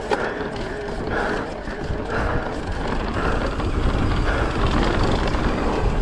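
Mountain bike ridden down a rough, rocky trail: tyres running over dirt and rocks, with the bike rattling over choppy ground and a low rumble that builds over the second half.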